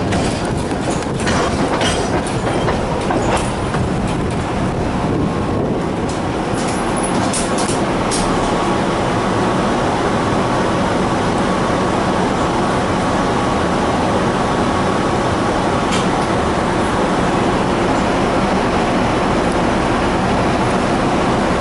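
Tatra tram running along the track: its wheels click over rail joints several times in the first eight seconds, then it settles into a steady rumble with a faint steady whine, with one more click near the end.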